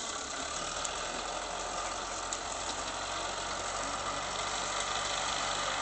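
Caterpillar 944 wheel loader's diesel engine running steadily as the machine works with a palm trunk in its grapple, under a constant hiss.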